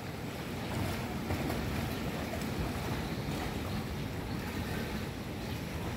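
Wind blowing across the microphone, a steady low rushing noise.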